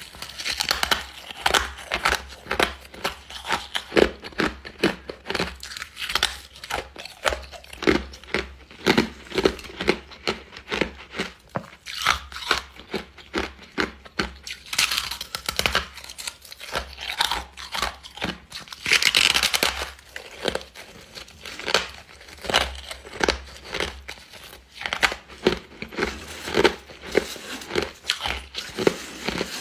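Refrozen freezer frost being bitten and chewed close to the microphone: a long run of crisp crunches, a couple a second, with a longer, denser crunch about nineteen seconds in.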